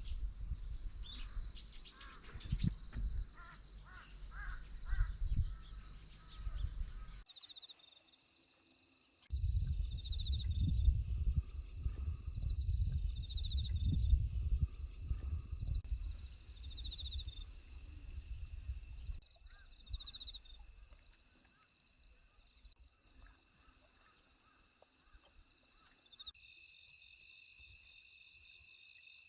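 Outdoor countryside ambience in several cut-together segments: wind rumbling on the microphone, scattered bird calls, and steady high pulsing insect trills, which run alone near the end.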